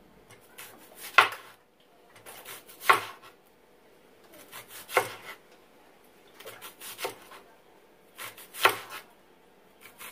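Chef's knife slicing an onion into rings on a plastic cutting board: a quieter crunch as the blade goes through the onion, then a sharp knock of the blade on the board, five times about two seconds apart.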